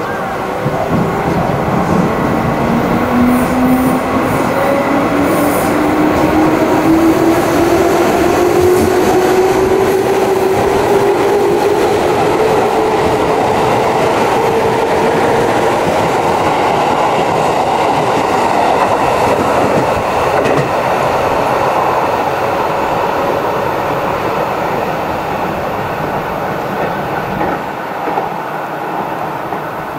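A JR West 221 series six-car electric train accelerating away, its motor and gear whine rising steadily in pitch for the first half and then levelling off. Wheels clatter over the rail joints underneath.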